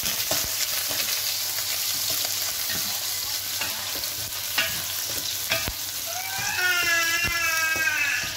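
Minced garlic sizzling in hot oil in a pan, with a spatula stirring and scraping it in light clicks. About six seconds in, a long, wavering, high-pitched cry rises over the sizzle and is the loudest sound.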